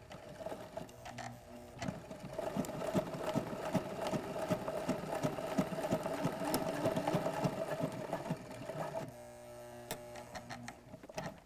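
Sailrite Ultrafeed LSZ-1 walking foot sewing machine stitching at a slow, even pace, a few needle strokes a second over a steady motor hum, punching through many layers of Dacron sailcloth at the clew of a mainsail. The stitching stops about nine seconds in.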